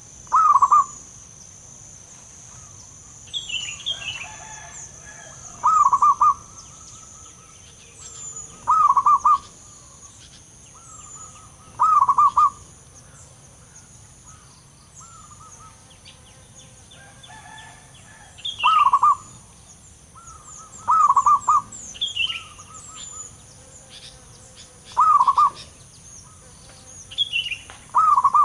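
Zebra dove cooing: short rolling trilled coos, about eight of them, repeated every two to three seconds with gaps, some led by a brief higher note. A faint steady high hiss and small high chirps run underneath.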